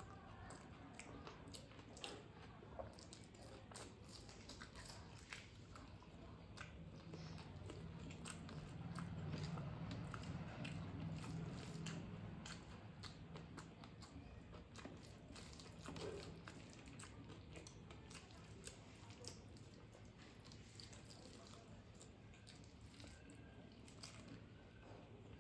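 A person chewing mouthfuls of rice and Bengali fish and vegetable dishes close to the microphone, with many small wet mouth clicks and the odd crunch. A low hum swells and fades about a third of the way through.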